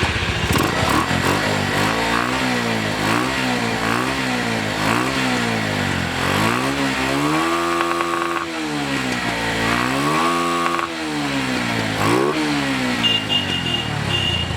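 A motorcycle engine being revved in place. Quick throttle blips come about once a second, then two longer revs that climb and hold briefly before dropping back, and one more blip near the end.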